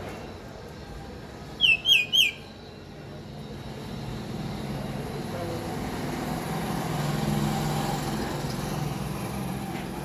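A myna gives three quick, sharp calls about two seconds in, each dropping in pitch. Then a low rumble builds over the next few seconds and fades.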